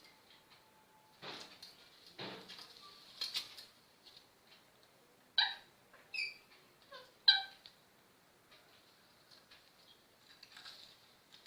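Pet parrot calling: three short harsh squawks in the first few seconds, then four short pitched calls, some falling in pitch, the loudest about seven seconds in.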